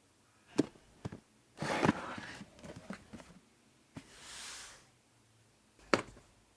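A few sharp clicks and knocks, a short rustling clatter about a second and a half in followed by small ticks, and a soft hiss that swells and fades near the middle.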